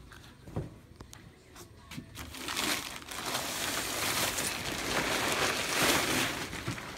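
Blue plastic tarp crinkling and rustling as it is dragged off a garden tractor, getting loud about two seconds in and going on steadily after that. A few light clicks come before it.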